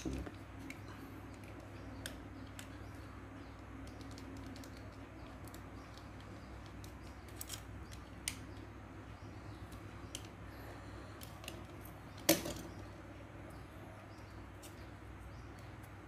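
Small, sparse clicks and taps of small plastic and glass parts being handled on a tabletop, with one louder tap about twelve seconds in, over a faint steady hum.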